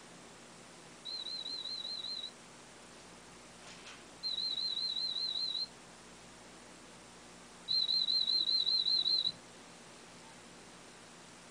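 High-pitched warbling test tone from an audiometer, sounded three times for about a second and a half each, each one louder than the last. These are tones presented in a hearing threshold test of a cochlear implant user, to find the softest one heard.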